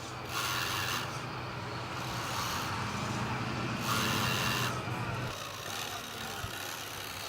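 Small motor of a radio-controlled model machine humming steadily, with two short bursts of scraping, one about half a second in and one about four seconds in, as dirt and stones are pushed; the hum stops about five seconds in.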